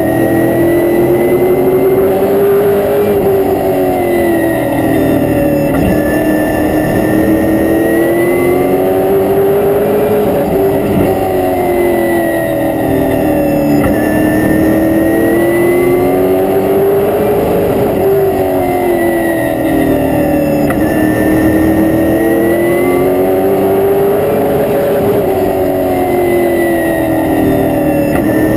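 Race car's V8 engine, heard from inside the cockpit at racing speed. The revs climb slowly and then drop sharply about every seven seconds, as the car lifts for the turns of the short oval and accelerates back down the straights.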